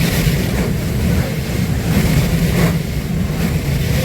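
Automatic train-washer water spray and brushes washing the outside of an electric train, heard from inside the carriage as a steady rushing rumble that swells briefly about two and a half seconds in and again near the end.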